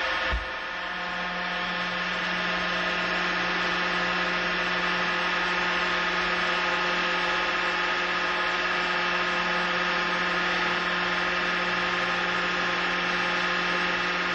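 Sling tensile test machine running with a steady, even hum while it pulls a wet nylon sling under rising load, with a brief low bump just after the start.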